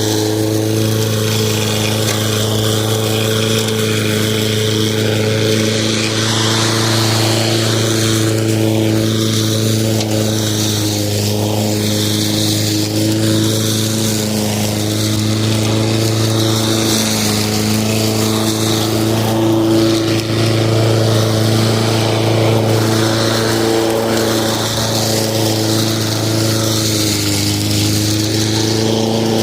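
Lawn mower running steadily, its motor holding an even pitch with slight wavering.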